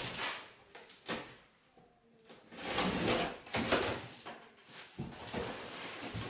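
A large corrugated cardboard box being opened by hand: several scraping, rustling strokes of cardboard flaps and packing tape being cut and pulled, with a short quiet pause about two seconds in.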